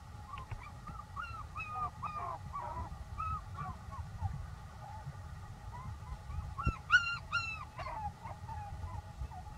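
Short, high-pitched animal calls, each rising and then falling, repeated in quick runs, with a louder cluster of calls about seven seconds in.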